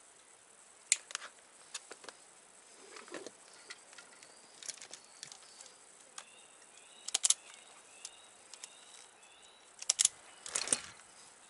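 Scattered sharp clicks and snaps of electrical wire and small connectors being handled and worked with hand tools, with a quick pair of clicks past the middle and a cluster near the end.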